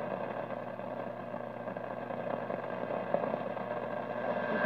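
AM radio reception noise from a Panasonic SG-451's built-in transistor radio: a steady hiss and hum with a few fixed whistle-like tones, and no programme heard through it.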